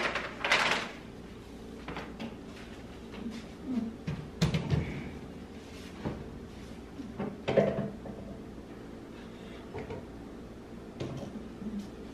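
Handling noises of framed pictures and a large framed mirror being set down and moved into place on a wooden sideboard: a few separate knocks and scrapes, the heaviest a dull thump about four and a half seconds in.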